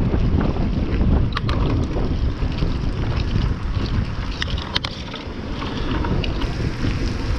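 Tropical-storm wind buffeting the microphone in a loud, steady low rumble, with a few sharp clicks about a second and a half in and near the middle.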